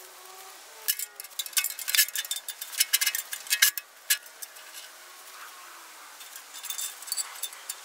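Steel chain clinking and rattling as it is handled and hung over the edge of a loader bucket: a quick run of sharp metallic clinks from about a second in to nearly four seconds, then a few more near the end.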